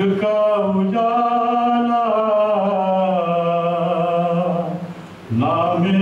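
A man singing a naat unaccompanied, holding one long wavering, ornamented note for nearly five seconds. He pauses briefly for breath, then starts a new phrase near the end.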